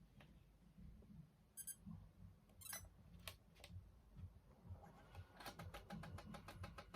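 Faint clicks and ticks from a Sony Mavica floppy-disk camera in use, with a quick, even run of ticks from about five seconds in as the disk drive works.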